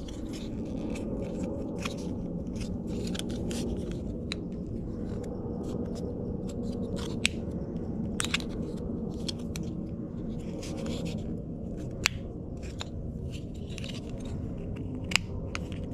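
Small plastic parts handled and pried apart: scattered light clicks and scrapes with a few sharper clicks, as a steering-wheel control box housing is opened and its control module taken out. A steady low hum runs underneath.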